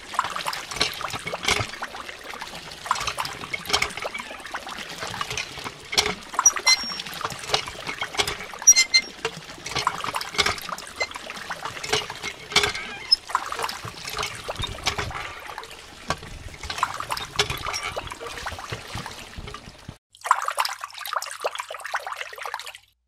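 Water trickling and splashing into a shallow plastic pool from the spout of a miniature plastic hand pump as its handle is worked. About 20 s in, it thins to a lighter trickle.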